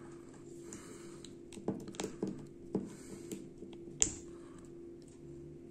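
Small clicks and taps of hard plastic action-figure parts being handled as a swap hand is pushed onto the figure's arm, the sharpest click about four seconds in. A faint steady hum runs underneath.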